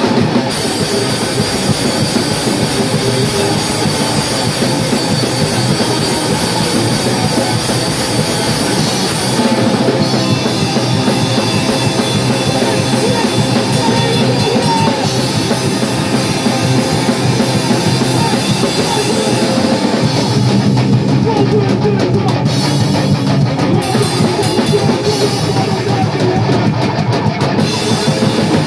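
Live powerviolence played by a guitar-and-drums duo: loud distorted electric guitar over fast, dense drumming. The part changes about ten seconds in and again about twenty seconds in.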